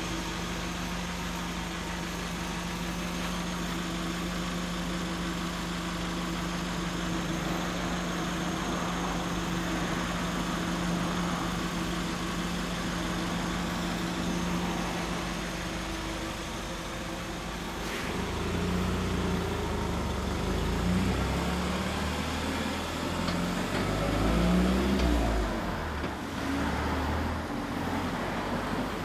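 Kawasaki Zephyr 750's air-cooled inline-four engine idling steadily through an aftermarket muffler. About 18 seconds in the steady note gives way to uneven rises and falls in pitch and loudness, as the throttle is blipped.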